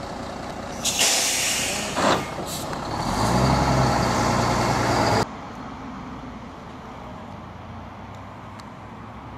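Timber truck's air brakes letting out a loud hiss for about a second, with a second short burst, then its diesel engine running loudly until the sound cuts off abruptly about five seconds in.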